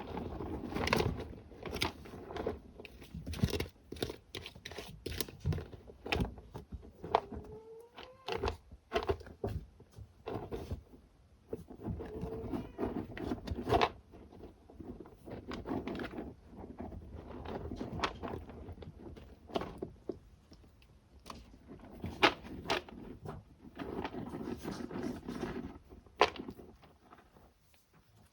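Kittens scratching and digging in cat litter: an irregular run of scrapes, crunches and rustles.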